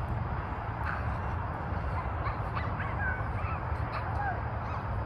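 Outdoor background noise: a steady low rumble with scattered short, high chirping calls.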